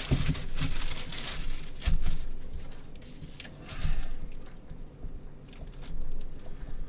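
Clear plastic bag and sleeve crinkling and rustling in gloved hands as a trading card is packed, in irregular bursts, with a couple of soft knocks on the table near the start and about two seconds in.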